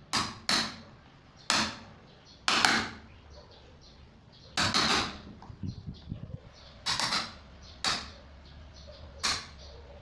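A steel hammer striking a wood chisel as it cuts a hole for a door latch bolt in a painted wooden door jamb. There are about ten sharp knocks at irregular intervals, some in quick pairs.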